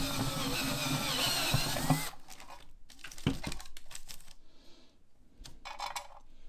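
Cordless drill with a step drill bit cutting through the steel trunk lid hinge to open the hole to a quarter inch, running steadily for about two seconds and then stopping abruptly. A few light knocks follow as the drill and hinge are handled.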